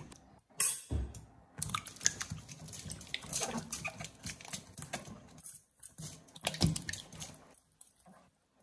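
Hands washing zucchini in a stainless steel bowl of water: irregular splashing, sloshing and wet rubbing of the zucchini skin, with the loudest splash or knock about a second in.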